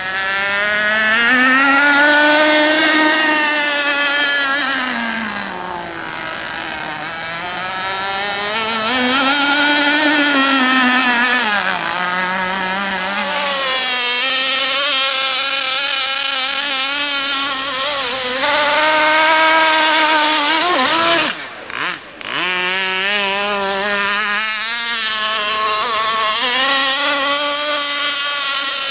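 Radio-controlled racing boat run at full throttle, giving a high buzzing whine. Its pitch climbs and falls again every few seconds as the boat passes and turns. About 21 seconds in the sound cuts out briefly, then picks back up.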